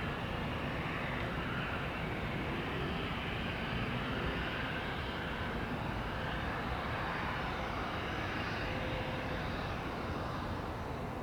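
Bombardier Global Express business jet landing, its twin turbofan engines making a steady rushing jet noise that eases slightly near the end.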